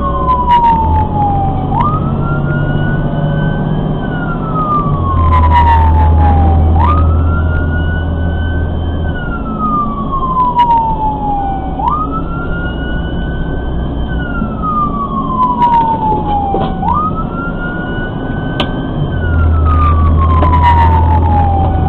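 Fire engine siren on wail, cycling about every five seconds: a quick rise, a short climb to the top, then a long slow fall. The truck's engine rumbles low underneath and grows louder twice for a few seconds.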